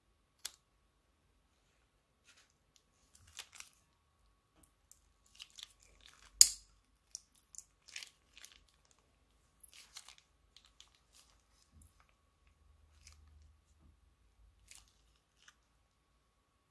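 Scissors snip through the tip of a plastic piping bag once, about half a second in. Then comes a scattering of small plastic crinkles and sticky clicks as thick clear liquid is squeezed out of the bag into a glass bowl, with one sharp click a little past the middle.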